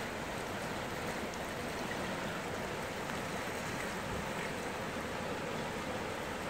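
Steady rush of a fast-flowing shallow river running over rocks.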